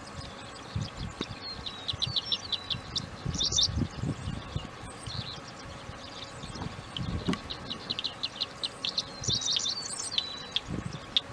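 Songbirds chirping and trilling in quick runs of short high notes, with a busy burst about three and a half seconds in and another near ten seconds. Irregular low rumbles of wind buffeting the microphone run underneath.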